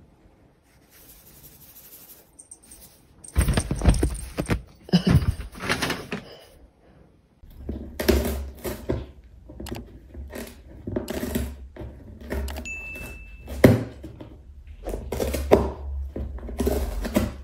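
Irregular knocks and thumps on cardboard as a cat scrambles about inside a cardboard box, with a short high beep about two-thirds of the way through.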